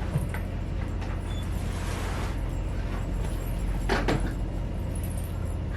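Cardboard packaging of an iMac box being handled and opened, with a small knock early and two short knocks or rustles about four seconds in, over a steady low hum.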